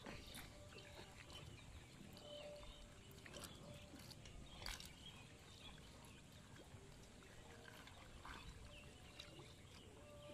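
Faint splashes, drips and scattered small ticks of a ring net fish trap's tail end being worked by hand in shallow water to shake the fish out.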